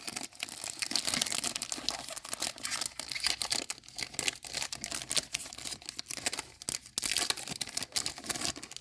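A trading-card pack's foil wrapper being torn open and crinkled by hand: a dense, continuous run of crackles.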